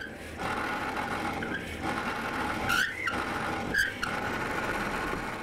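Drill press running with a brass-bodied cutter boring into a hardwood block: a steady motor whine and cutting noise that starts about half a second in, with two short squeals of the cutter in the wood about a second apart near the middle.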